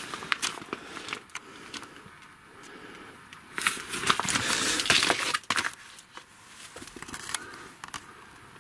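A firework rocket package being handled: cardboard and plastic packaging rustling and crinkling with small knocks and clicks, loudest for a couple of seconds in the middle.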